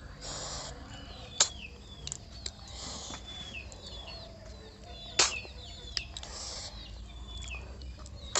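Close-up eating sounds of snail curry with rice: three short slurps and a few sharp clicks, one loud about five seconds in. A bird repeats a quick falling chirp in the background.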